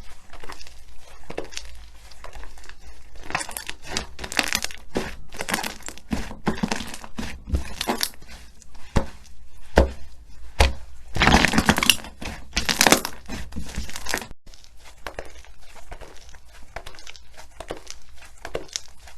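Slime being squeezed and stretched by hand: a run of irregular crackles and pops, loudest and densest about ten to thirteen seconds in.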